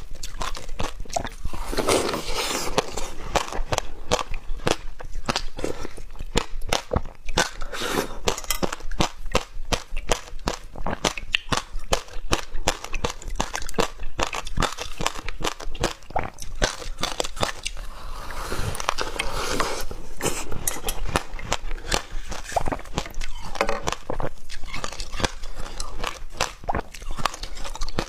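Shaved ice being bitten and chewed close to the microphone: a continuous run of quick, crisp crunches and crackles.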